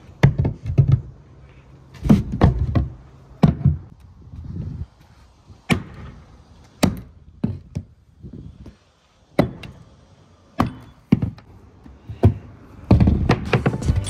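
Irregular thuds and knocks, about a dozen, spaced unevenly, of tools and building materials being handled and set down. Music comes in near the end.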